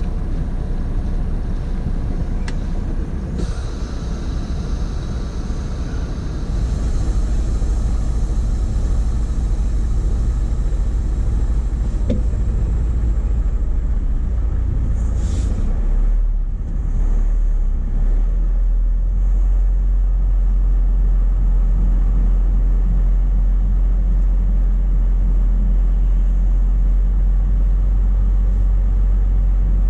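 Semi truck's diesel engine running, heard from inside the cab as a steady low rumble. It grows louder about seven seconds in and again about eighteen seconds in.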